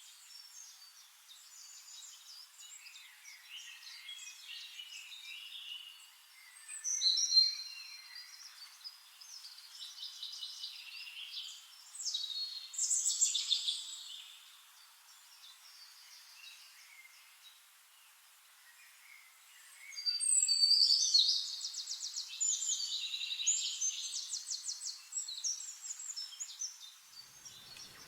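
Several birds chirping and singing in a forest dawn chorus: short high whistled notes and fast trills from more than one bird, with louder outbursts about seven seconds in, around thirteen seconds, and a long busy stretch from about twenty seconds.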